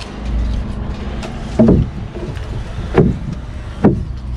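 Three dull knocks on the column formwork, the second about a second and a half after the first and the third a second later, over a steady low machine hum.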